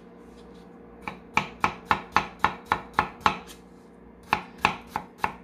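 A kitchen knife slicing a peeled potato thinly on an end-grain wooden cutting board. After about a second, a quick run of sharp knocks of the blade on the board comes at about four a second, then a short pause and a few more knocks.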